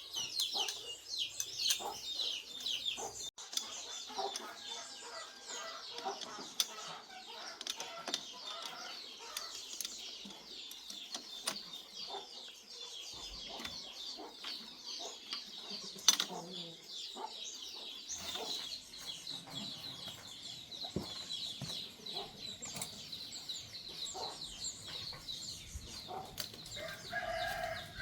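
Chickens in the background, with chicks cheeping continuously and hens clucking, and a few sharp knocks, the loudest about halfway through.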